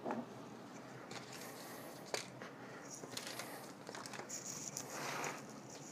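Quiet handling of a fixed-blade knife as it is laid down on a wooden tabletop: faint clicks, one light knock about two seconds in, and some rustling near the end.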